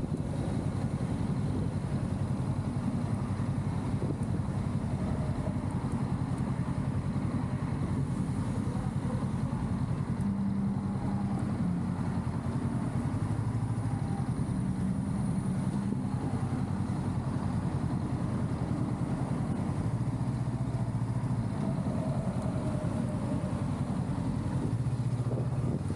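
Honda Rebel 500's parallel-twin engine running at low revs in slow stop-and-go traffic. Its pitch rises and falls a few times as the throttle is rolled on and off.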